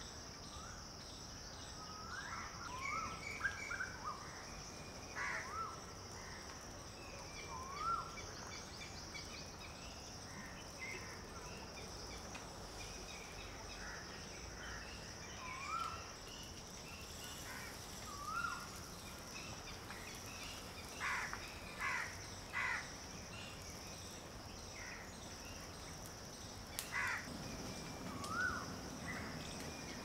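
Birds calling over a steady high insect drone: short rising calls repeat every couple of seconds, with a cluster of harsher, louder calls past the middle and another near the end.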